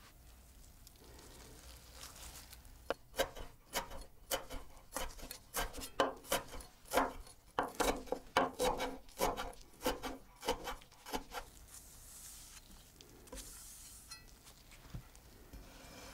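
Chef's knife chopping fresh dill on a wooden cutting board: a run of crisp knocks about three a second, starting a few seconds in and stopping about eleven seconds in, then softer sounds from the knife and herbs.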